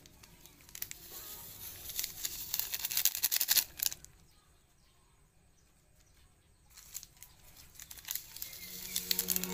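Crinkling and tearing of instant-noodle seasoning sachets as the powder is shaken out over noodles in a pot, in two spells of rustling with a quiet gap of about three seconds between them. Music comes in near the end.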